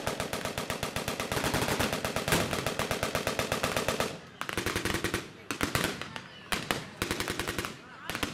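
Massed blank gunfire from machine guns and rifles in a battle reenactment: dense rapid firing for about four seconds, then thinning to scattered shots.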